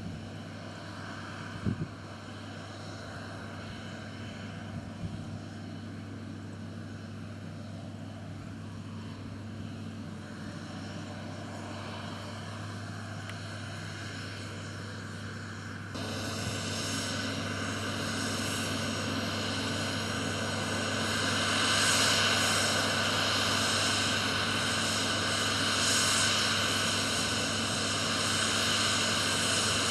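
Heavy farm machinery's diesel engine running steadily. About halfway through, the sound suddenly gets louder, with much more hiss and mechanical noise on top of the engine drone.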